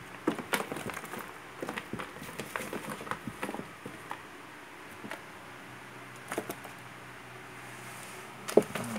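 Scattered light clicks, taps and scrapes on a plastic tub and its plastic floor grid as an Asian water monitor is handled and shifts about on it. The clicks come thickly over the first few seconds, then thin out, with one sharper click near the end.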